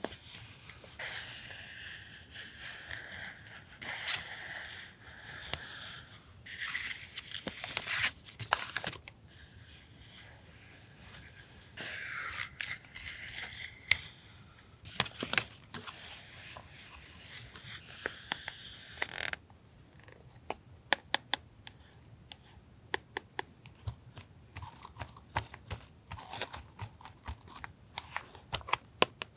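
Small cut pieces of sticker and washi-tape paper being handled: rustling and sliding in stretches for about the first two-thirds, then a run of light, sharp taps and clicks.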